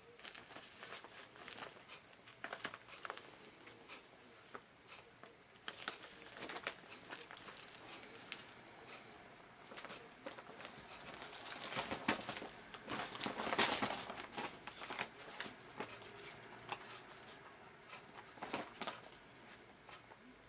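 Small bells inside a silvervine cat toy ball jingling and rattling in irregular bursts as a cat bats it around. The longest and loudest bout is in the middle.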